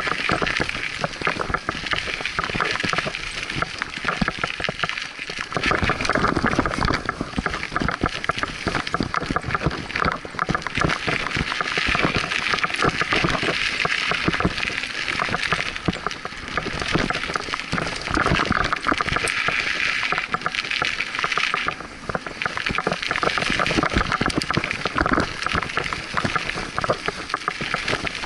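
Scott Aspect 35 hardtail mountain bike riding a dirt singletrack: a continuous dense rattle and crackle of knobby tyres on dirt and small stones, with the bike's frame and components clattering over bumps. The noise eases briefly about two-thirds of the way through.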